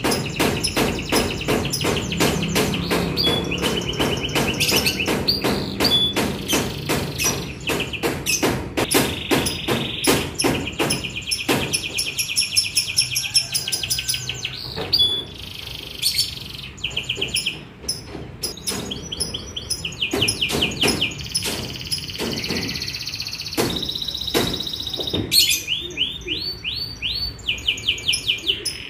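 Young domestic canary singing in rapid rolling trills and chirps, its song building from one fast run of repeated notes into the next. Under the song, through about the first half, runs a fast string of sharp knocks.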